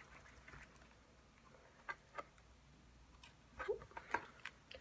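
A picture book being handled and shaken: faint scattered clicks and soft rustles, two single clicks about two seconds in and a short cluster of them near the end.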